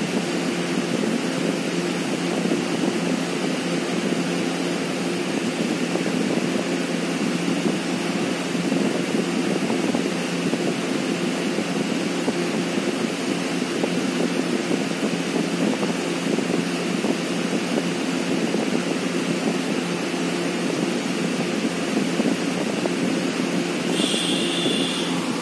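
Steady mechanical drone: a low hum under an even rushing noise, unchanging throughout. A brief high-pitched tone sounds once near the end.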